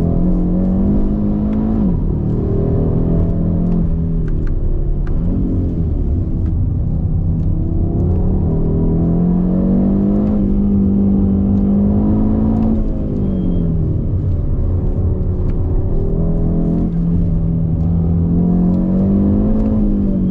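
2021 Audi RS 3's turbocharged five-cylinder engine heard from inside the cabin while the car is driven hard. Its note climbs under throttle and then drops sharply, about four times: a couple of seconds in, around five seconds, around thirteen seconds and near the end.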